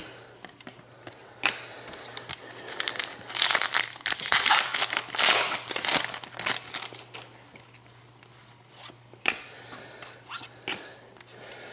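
Crinkling and tearing of a trading-card pack wrapper being opened by hand, densest in the middle, with a couple of sharp clicks of card handling; a faint steady low hum underneath.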